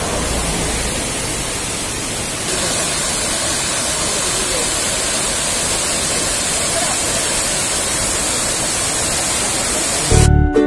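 Steady rush of the Cheeyappara waterfall, water pouring down a tiered rock face. About ten seconds in, plucked-string music cuts in over it.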